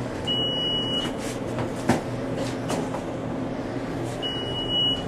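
Elevator car running with a steady hum, and two long high beeps from its signal, about four seconds apart, with a single click between them.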